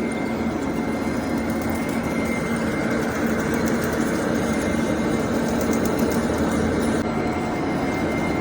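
Metal lathe running steadily while turning a hub, the cutting tool taking metal off the outer diameter, with a constant hum and a thin high whine throughout.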